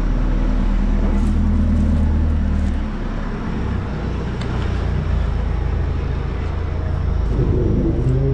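A heavy diesel engine runs steadily with a low hum. Its sound drops about three seconds in and picks up again about two seconds later.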